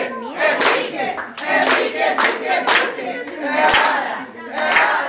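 A group of party guests singing a birthday song together and clapping in time, about two claps a second.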